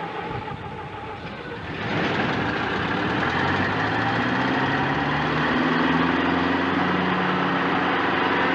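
Engine of a small two-row combine running, then about two seconds in it gets much louder as it is throttled up, its pitch climbing for a few seconds before holding steady.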